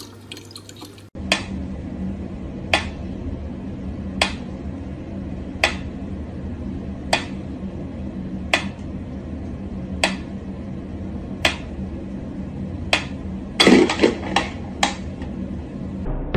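Mechanical pyramid metronome ticking at a slow, even tempo, about one tick every one and a half seconds, over a steady low hum. Near the end a quick cluster of louder clicks and knocks breaks the rhythm.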